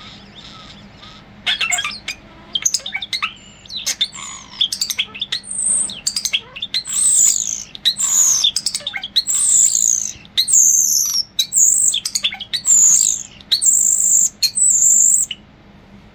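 European starling singing: a fast run of clicks, rattles and squeaks that turns into repeated high whistled phrases, some sliding down in pitch, about a phrase a second until it stops near the end.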